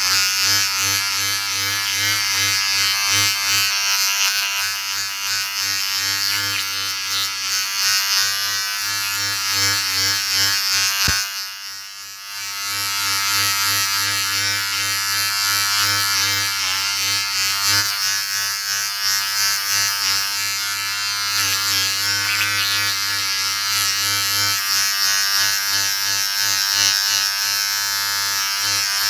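Electric shaver running with a steady buzz, its sound dropping briefly with a click about eleven seconds in before it carries on.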